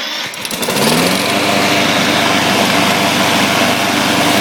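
Lawn mower engine catching and picking up speed about half a second in, then running steadily at speed.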